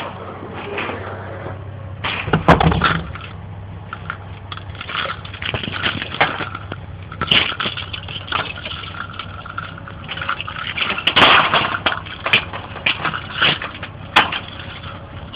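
Handling noise from a handheld camera being carried and moved about: irregular knocks, clicks and rustling, over a steady low hum. The loudest knocks come about two and a half seconds in and again about eleven seconds in.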